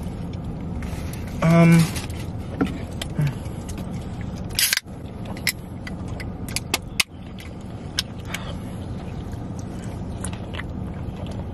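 Eating sounds inside a car: scattered clicks and taps of wooden chopsticks, foam takeout containers and a soda can over a steady low cabin hum. A brief hummed voice comes about one and a half seconds in.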